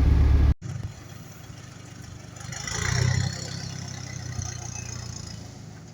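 Motor vehicle engine running with a steady low hum, swelling louder with added road noise around three seconds in, then settling back.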